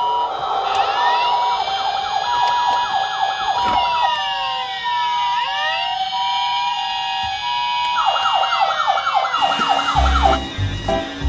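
Several toy police cars' and ambulances' electronic sirens sounding at once: a steady alternating two-tone hi-lo, a fast repeating yelp and slower rising and falling wails overlap. Music with a beat comes in near the end.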